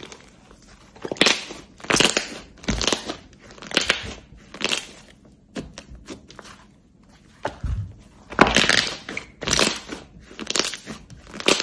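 Thick pale pink slime being squeezed, folded and pressed flat by hand, giving a series of crunchy, crackling squishes about once a second, with a short lull in the middle.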